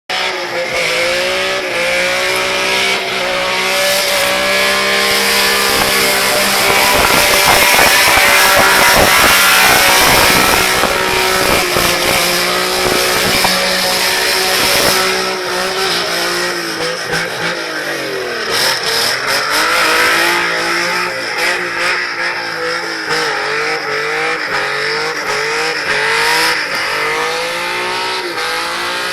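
A GT car's engine held at high revs with the throttle floored while the car drifts and spins its tyres on wet ground, with a steady hiss of tyre and spray noise. In the second half the revs dip and then rise and fall over and over, about once a second.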